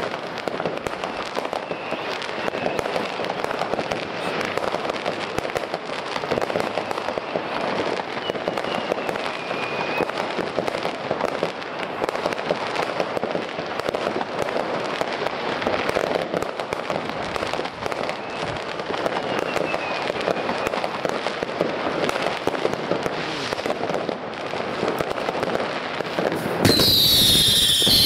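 Dense, continuous crackling and banging of many consumer fireworks going off at once, with a few faint whistles. Near the end a louder, closer firework cuts in with a high falling whistle.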